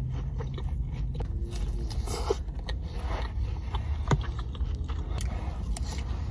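Close-miked eating of sushi: chewing with wet mouth clicks and smacks, scattered sharp clicks over a steady low hum.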